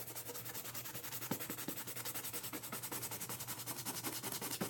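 Rapid, even back-and-forth scrubbing on the leather of a Nike Air Force 1 sneaker during a soap-and-water cleaning.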